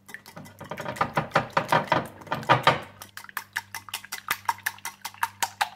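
Raw eggs being beaten in a bowl: a utensil clicks rapidly and evenly against the bowl's side, about six or seven strokes a second, loudest through the middle of the stretch.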